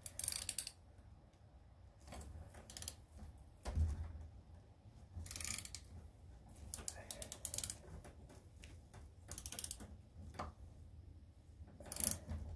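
A thread tap being turned by hand into a bolt hole in a Briggs & Stratton engine's mounting base: short, irregular bursts of metal clicking and scraping as the tap cuts, with brief pauses between turns.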